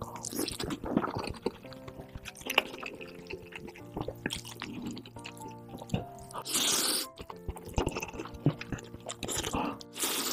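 Close-miked eating sounds: chewing and wet clicks from a mouthful of fried egg, then two loud noodle slurps of spicy instant ramen, one about six and a half seconds in and one near the end. Background music with steady tones plays under it.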